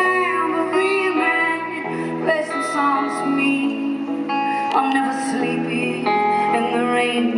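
Live band music with a woman singing into a handheld microphone, her voice carried over sustained accompaniment.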